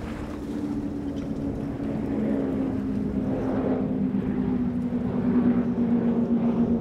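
High-performance powerboat engines running on the water, growing louder as the boat comes closer, with the engine note drifting slightly lower.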